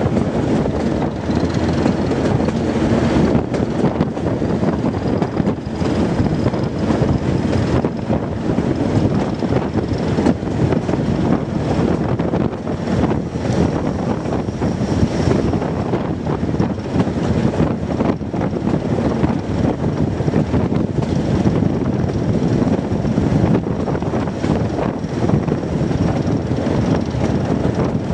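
Class 207 'Thumper' diesel-electric multiple unit on the move: the English Electric four-cylinder diesel engine runs steadily under the noise of the wheels on the track. Frequent short clicks and a faint high whine run through it.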